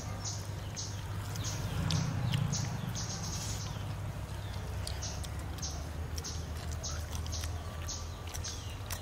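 Small birds chirping, many short high chirps repeating a few times a second over a low steady background hum.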